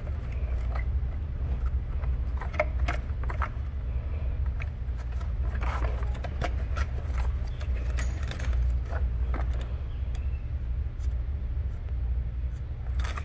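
Scattered small clicks and light rattles of plastic wiring-harness connectors being handled by hand, over a steady low hum.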